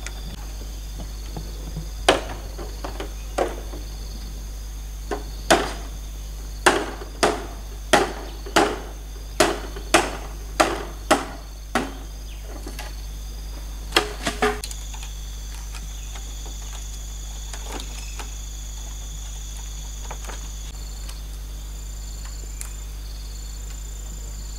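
A large knife chopping at bamboo poles: a run of sharp chops, about two a second for several seconds, then a last pair a little later. Insects trill steadily throughout.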